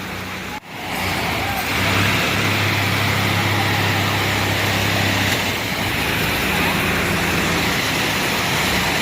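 Heavy machine engine running steadily with a low hum and broad mechanical noise, after a brief drop in sound less than a second in.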